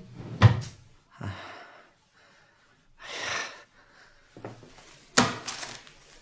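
A man's breathing sounds: a few separate short, breathy puffs and snorts, the loudest about five seconds in.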